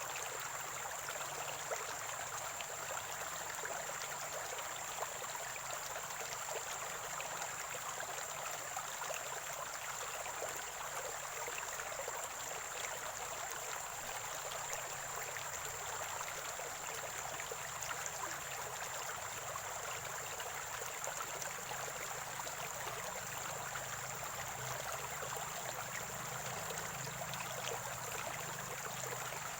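Spring water gurgling and trickling steadily over stones, an even rushing-babbling flow with no breaks. A thin, steady high-pitched whine sits under it throughout.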